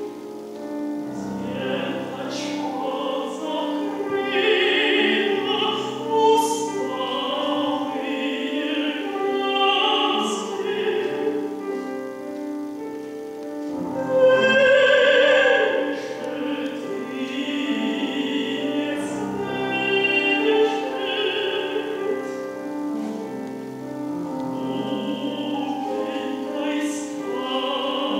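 A woman singing a chamber art song in classical operatic style, with piano accompaniment.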